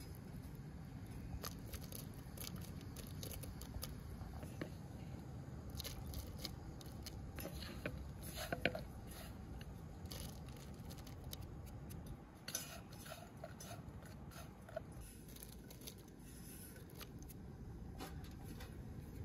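Broth boiling in a metal pot on a portable gas stove: a steady low rumble, with scattered small clicks and clinks through the middle, the loudest just before halfway, as shredded dough noodles are dropped in.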